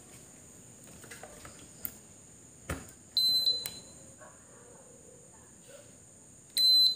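Air-conditioner control board's buzzer beeping as the unit is switched on: a short click, then a high beep about three seconds in and another near the end.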